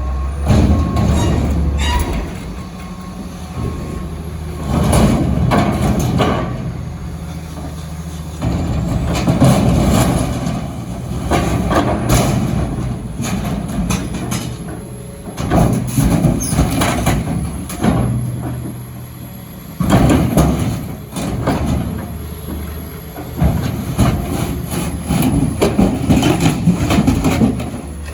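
Excavator's diesel engine running under load, with repeated bursts of heavy metal crunching, scraping and banging every couple of seconds as steel dumpsters are smashed. A reversing beeper sounds briefly at the start.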